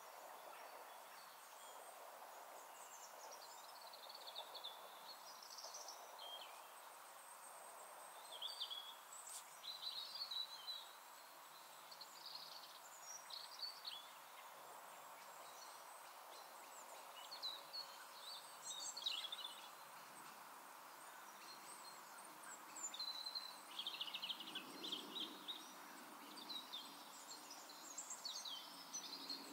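Faint birdsong: small birds chirping in scattered short bursts over a steady low hiss of open-air ambience. The calls come thickest about a third of the way in and again near the end.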